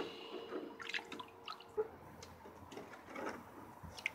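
Young raccoon wading and pawing at the water in a plastic kiddie pool: faint, scattered small splashes and drips.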